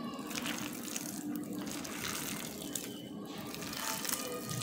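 A bare hand kneading and squeezing shredded sweet pumpkin with wet ground masoor lentil paste and spices in a glass bowl, making steady soft squishing and rustling.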